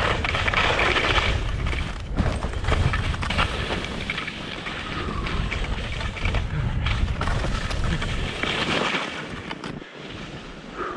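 Skis hissing and scraping over ungroomed, bumpy snow at speed, with wind buffeting the microphone as a heavy low rumble and sharp knocks as the skis hit bumps. The low rumble drops away near the end.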